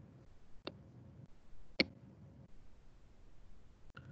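Two faint, short clicks about a second apart over quiet room tone.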